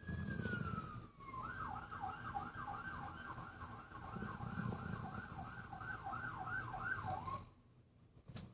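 Emergency vehicle siren: a slow falling wail that switches to a rapid yelp, about three pitch sweeps a second, then stops near the end. A low rumble runs beneath it.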